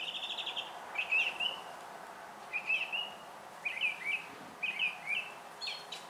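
A small songbird singing: a quick trill at the start, then a run of short chirping phrases every second or so, over a faint steady background hiss.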